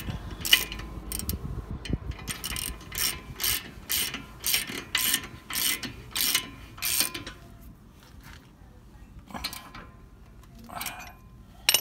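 Hand socket ratchet clicking as it tightens a lug nut, pulling a new wheel stud into the hub. A run of pawl clicks about twice a second on each back-swing for the first seven seconds, then only a few scattered clicks.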